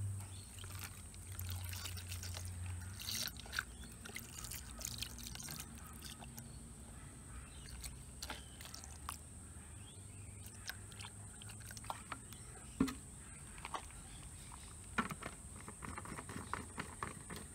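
Phosphoric acid pouring from a plastic jug into a plastic tub over steel parts: a steady trickle and splash of liquid, with many small scattered ticks and a few sharper splashes or knocks.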